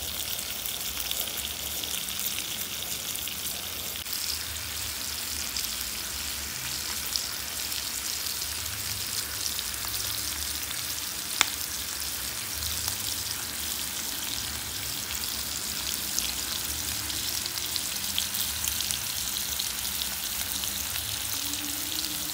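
Chicken breasts frying in oil in a pan: a steady sizzling hiss with fine crackles and one sharp pop about halfway through.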